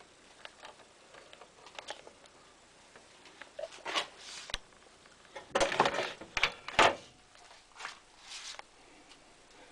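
Handling noise: scattered rustles, scrapes and small clicks, with a louder cluster of rustling and scraping about six to seven seconds in.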